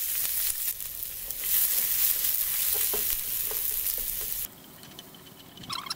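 Chopped onions and green chillies sizzling in hot mustard oil in a steel karahi, with a few light clicks near the middle. The sizzle turns much quieter about four and a half seconds in.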